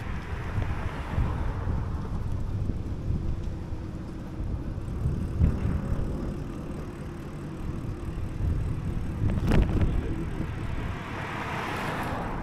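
Wind rumbling on the microphone of a moving bicycle camera, with a car passing in the first couple of seconds and another building up near the end. A sharp knock comes about two-thirds of the way through.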